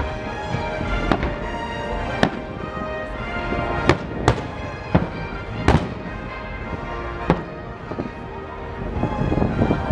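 Aerial fireworks shells bursting in a series of sharp booms, about seven at uneven spacing, roughly one a second.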